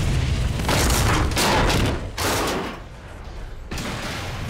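Explosions in a derailed train wreck: a string of sharp blasts over a heavy rumble that dies down after about two seconds, with one more blast near the end.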